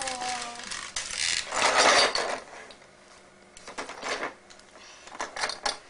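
Clattering and clicking of small plastic toys being handled by a toddler. A louder clatter comes about a second and a half in, and a few sharper clicks follow later.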